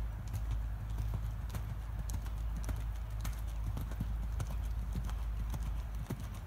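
Hoofbeats of an American Saddlebred gelding moving around a sand arena under a rider: a run of light, irregular clicks over a steady low rumble.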